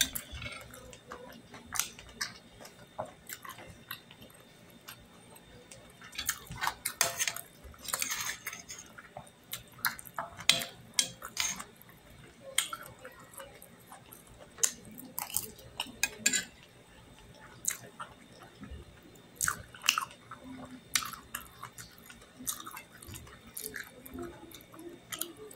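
Close-up eating sounds of a person chewing and smacking chicken and potatoes, with irregular small clicks, and now and then a spoon knocking and scraping on the plate.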